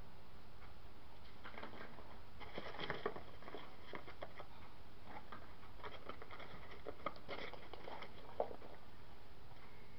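Hands rummaging through foam packing peanuts in a styrofoam box: scattered light rustling and clicking, coming in clusters, with one sharper tap about eight seconds in.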